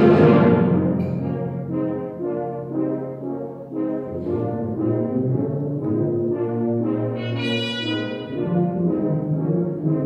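Symphonic wind band playing live: it opens on a loud full-band accent that rings away, then holds sustained brass and woodwind chords in a slow-moving melody, which turn brighter a little past the middle.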